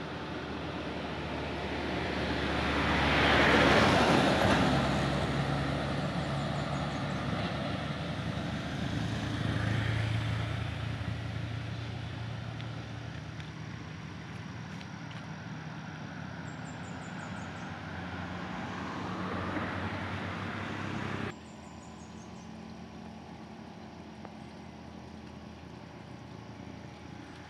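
Road traffic with engines running: one vehicle passes close about four seconds in, and others go by more softly around ten and twenty seconds in. About twenty-one seconds in the sound cuts off abruptly to a quieter, steady traffic background.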